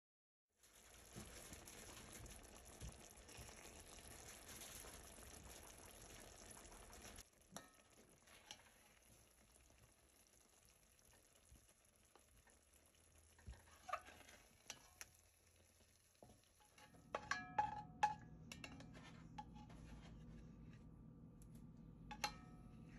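Tomato and bread soup simmering in an enamelled pot with a faint, steady sizzle for the first several seconds. Later, a serving spoon clicks and scrapes against the pot in quick clusters.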